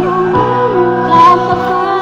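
Music playing, a song with a singing voice over a steady backing.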